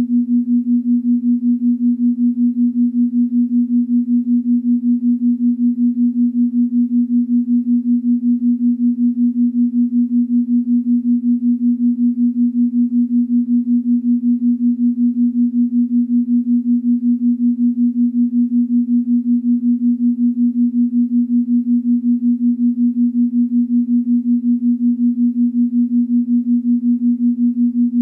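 Steady electronic meditation tone: a single low, pure, sine-like pitch with an even, rapid throb in its loudness.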